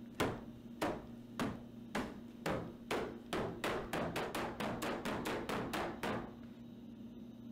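Fists pounding on a panel of wooden boards fixed to a wall: a run of hard knocks, about one every half second at first, speeding up to three or four a second before stopping about six seconds in.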